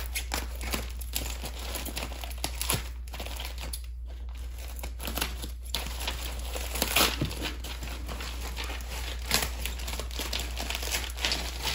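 Thin plastic wrapping crinkling and rustling as a packet of crystals is unwrapped by hand, in a continuous irregular run of crackles.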